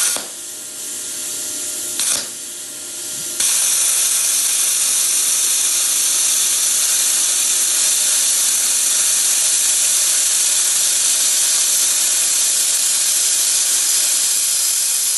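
Hitbox HBC5500 plasma cutter, set at about 20 amps and 30 psi, cutting 1/8-inch steel plate: a short blast of air hiss at the start and another about two seconds in, then a loud steady hiss from about three and a half seconds in that stops near the end as the cut finishes.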